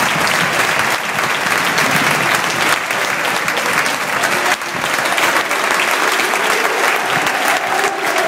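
Large stadium crowd applauding, a dense, steady patter of clapping from the stands.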